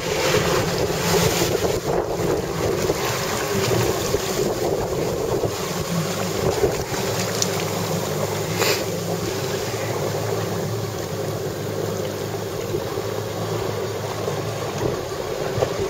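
Jet ski engine running steadily, with wind buffeting the microphone and water splashing.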